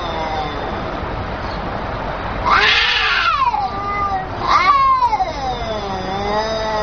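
Cats caterwauling in an aggressive standoff: long, wavering, drawn-out yowls, broken by two sharper, louder cries that rise and then fall, about two and a half and four and a half seconds in.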